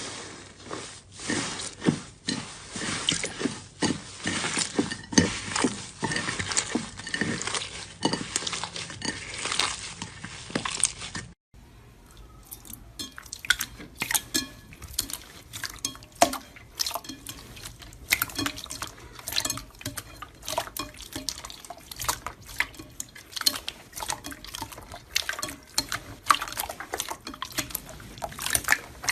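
Slime being squeezed and worked by hand, a dense run of wet clicks and pops. The sound drops out briefly about eleven seconds in and resumes with sparser pops.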